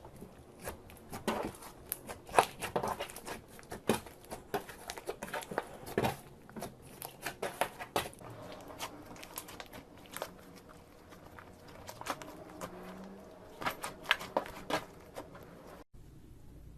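Slime being pressed and squeezed by hand, giving irregular small pops and crackles. The sound drops out briefly near the end and then stays quieter.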